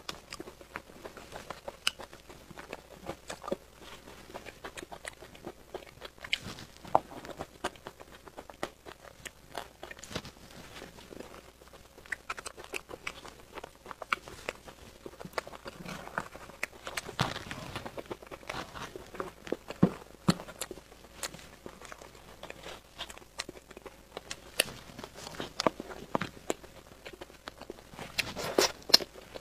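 Eating sounds: a spoon scraping and tapping inside a clear plastic cup of cream cake, with soft chewing and wet mouth clicks between spoonfuls, heard as many scattered small clicks.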